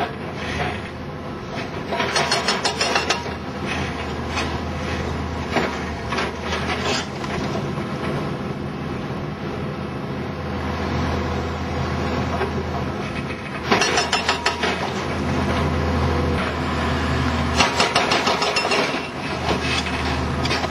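Diesel hydraulic excavator running steadily while it breaks apart a reinforced concrete bunker, with three bursts of crunching, cracking concrete and falling rubble.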